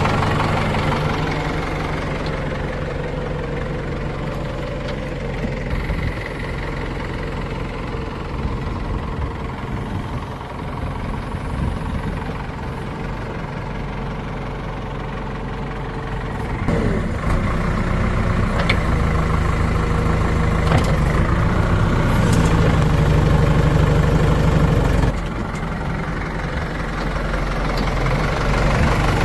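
Diesel engines of a backhoe loader and farm tractors running steadily. About halfway through they work harder and louder for some eight seconds, with a few knocks, then drop back.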